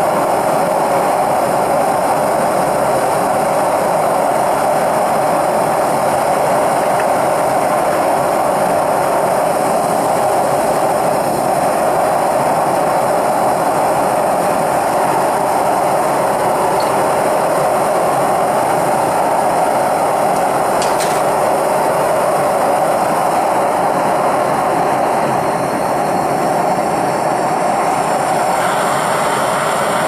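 Propane torch burner firing a small 5-inch crucible furnace, a steady, loud rushing noise that keeps the sterling silver melt at heat for pouring.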